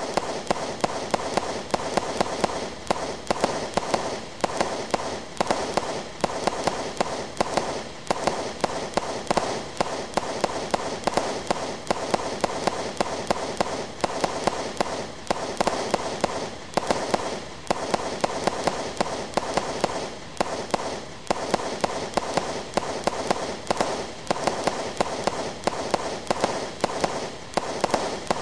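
A 100-shot, 30 mm fireworks cake firing brocade mines in a fast, continuous volley, several shots a second, each launch followed by a burst in the air.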